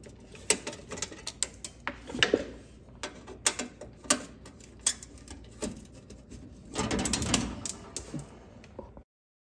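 Hands working at the underside of a Jeep Wrangler JL's fender make irregular sharp clicks and knocks of parts and fasteners, with a longer scraping rub about seven seconds in. The sound stops abruptly near the end.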